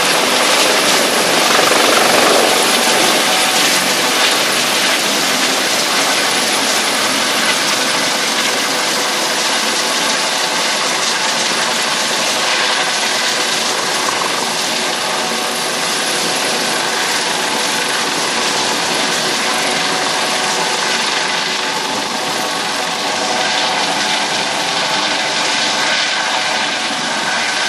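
A twin-engine Eurocopter Dauphin rescue helicopter with a fenestron tail hovers close by while winching a crewman up. Its rotors and turbines make a loud, steady rush with a whine through it.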